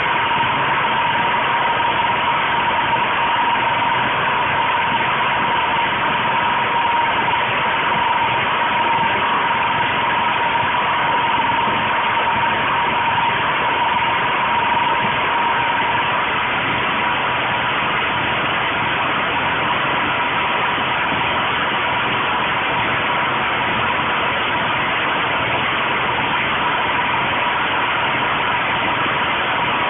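Small portable petrol generator engine running steadily, its intake fed with HHO gas from an electrolyser, with a steady high whine over it.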